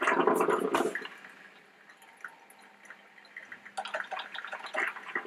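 Melitta Gevalia BCM-4C four-cup drip coffee maker mid-brew, gurgling and sputtering as hot water is pushed up to the brew basket: a gurgling burst in the first second, a lull, then irregular spitting about four seconds in that runs into another gurgle at the end.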